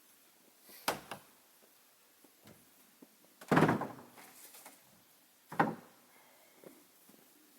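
Truck door thuds: three sharp knocks about a second, three and a half and five and a half seconds in, the middle one loudest and deepest, like the door being opened and slammed shut.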